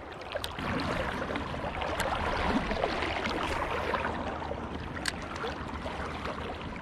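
River water sloshing and gurgling around a wading angler's legs, with a few sharp clicks.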